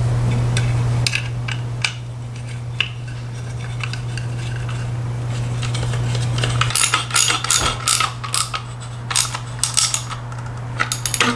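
Hard plastic clicking and clattering as a motorcycle's trimmed plastic rear fender is handled and a screw is fitted into it by hand. A few scattered clicks at first, then quick runs of sharp clicks in the last few seconds, over a steady low hum.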